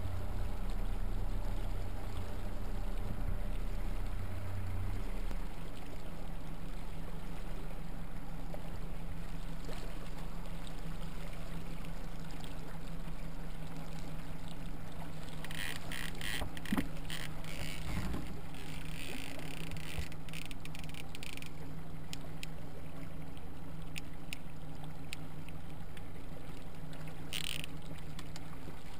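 Boat motor running steadily at low speed, a low even hum that shifts slightly about five seconds in. A scatter of light clicks in the middle and a brief rustle near the end.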